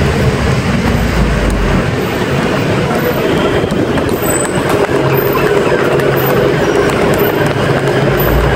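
Steady road traffic noise from cars on the street alongside: engines and tyres, with a low hum.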